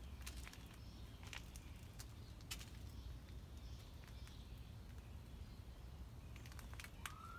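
Quiet outdoor background with a low steady rumble and scattered faint light clicks, and a short rising chirp near the end.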